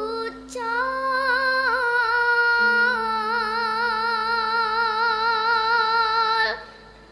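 A young girl sinden singing a long held note in Javanese style into a microphone, its pitch wavering in a steady vibrato, breaking off sharply about six and a half seconds in. A steady low accompanying tone holds underneath.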